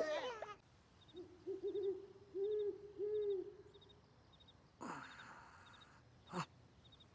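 Cartoon night-time sound effects: an owl hooting several times in a row, over faint crickets chirping at a steady pace, then two whooshes near the end.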